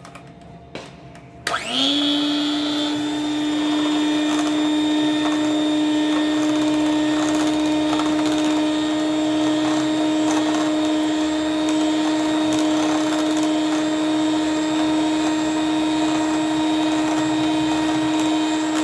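Electric hand mixer switched on about a second and a half in, spinning up quickly and then running at one steady pitch as its beaters whip chilled instant whipped-cream batter. A couple of light clicks come before it starts.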